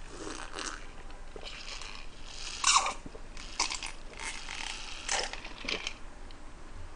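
Close-up mouth sounds of drinking a glass of black vinegar drink: a string of gulps and wet mouth noises, the loudest about three seconds in.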